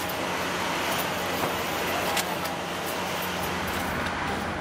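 Steady whir of electric machinery with a low hum, and a few crinkles of plastic bags being handled.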